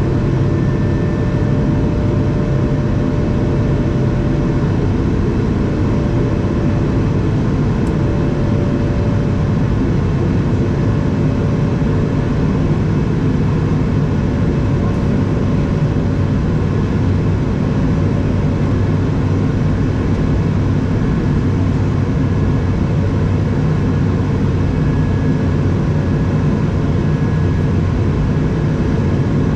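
Cabin noise of an Airbus A220 in flight, heard from a window seat over the wing: the steady low rumble and rush of its Pratt & Whitney PW1500G geared turbofans and the airflow, with a faint whine that comes and goes.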